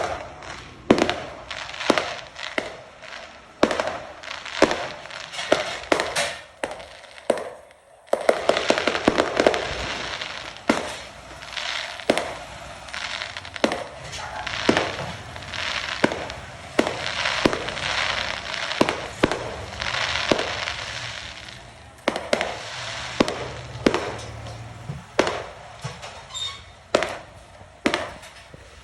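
Fireworks going off: a steady stream of irregular sharp bangs and pops with crackling between them, and a brief lull about eight seconds in.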